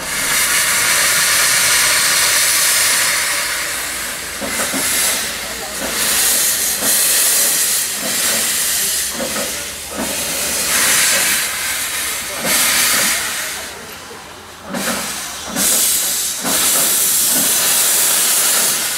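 Steam locomotive 898.01, a narrow-gauge tank engine, hissing loudly from its open cylinder drain cocks as it moves off slowly. The hiss starts suddenly and surges and eases in pulses with the piston strokes, dropping back briefly a few times.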